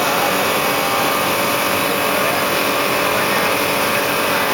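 CNC wood-turning lathe cutting a spinning wooden blank into a turned spindle: a steady, loud cutting noise.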